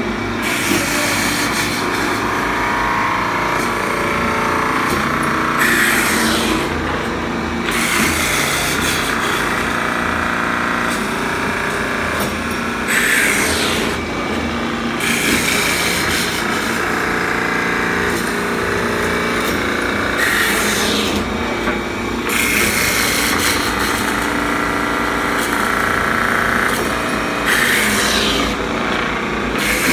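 Hempel VK10 woodworking machine running in automatic mode, cutting wooden blanks. Its motor and cutting noise run steadily, with a louder sweeping surge about every seven seconds as each automatic cycle comes round.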